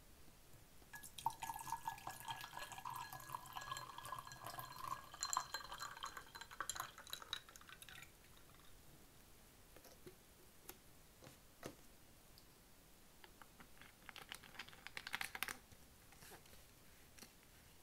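Tea poured from a plastic bottle into a glass, splashing and gurgling for several seconds, with faint tones as the glass fills. A few small clicks follow, then a shorter burst of sound about 14 seconds in.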